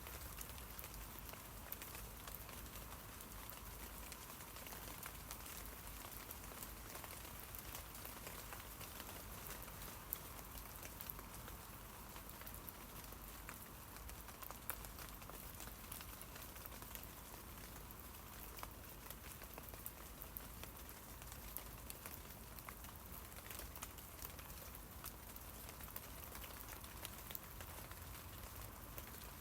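Rain falling on tree leaves: a steady, fairly faint patter of many small drop ticks.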